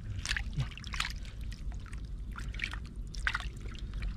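Shallow rice-field water splashing and sloshing in irregular bursts, several a second at times, as it is stirred by hand. A low rumble runs underneath.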